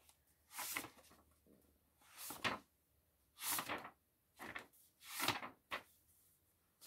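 Pages of a thin paperback picture book being turned by a small child's hand: about six quick paper swishes and rustles, roughly a second apart.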